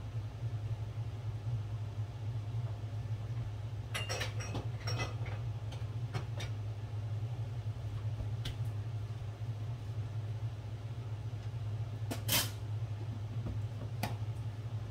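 Food containers and a refrigerator door being handled: scattered knocks and clatters, a cluster about four to five seconds in and the sharpest clack about twelve seconds in, over a steady low hum.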